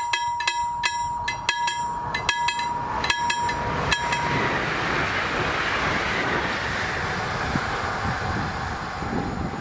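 Level-crossing warning bell striking about three times a second over a steady electronic tone, with the lights and barriers closed for an oncoming train. From about three seconds in, the rushing noise of the approaching train builds and takes over, and the bell strikes end about four seconds in.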